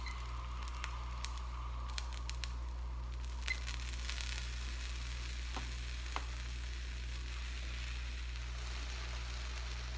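Buttermilk blueberry pancakes sizzling on a hot electric griddle: a soft, steady frying hiss over a constant low hum. A few light clicks come in the first couple of seconds as the buttons of a digital kitchen timer are pressed.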